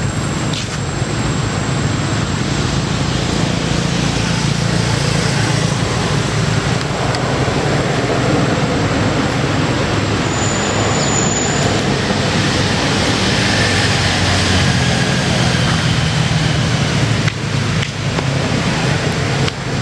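Steady, continuous rumble of motor-vehicle traffic, with no single event standing out, and a faint thin high tone held steadily underneath.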